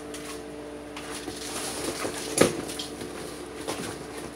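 Cardboard and plastic packaging rustling and scraping as a black plastic welding helmet is lifted out of its box, with one sharp knock about halfway through. A steady low hum runs underneath.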